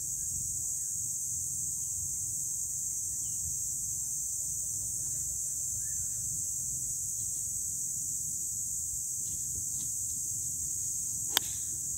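A golf club strikes a ball from the tee once near the end, a single sharp click. Steady outdoor background noise runs under it.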